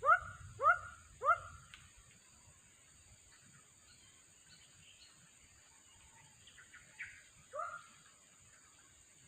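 An animal calling: three short, sharp pitched calls about 0.6 s apart in the first two seconds, ending a run that began just before, then one more call about 7.5 s in.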